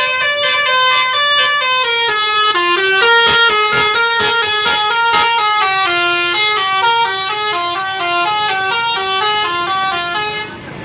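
Bus's telolet basuri musical air horn playing a fast tune of short, stepped horn notes that cuts off abruptly near the end.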